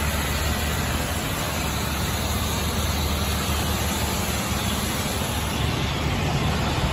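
Fire truck's diesel engine running steadily close by: a constant low hum under an even wash of noise.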